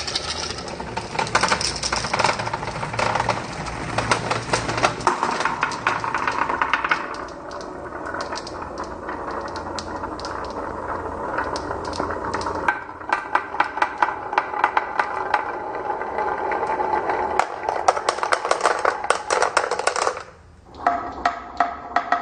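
Marbles rolling and clattering down a wooden marble run, a rolling rumble with rapid clicks on the wooden track. The sound stops briefly near the end, then the clicking starts again.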